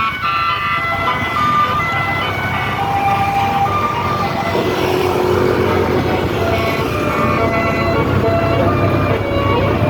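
Bus telolet horn playing a quick melody of held, changing notes over the bus's engine. The engine rumble grows louder from about halfway through.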